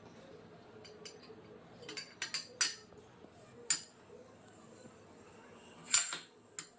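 Kitchen utensils and dishes clinking: a scattering of short sharp clinks, the loudest about six seconds in.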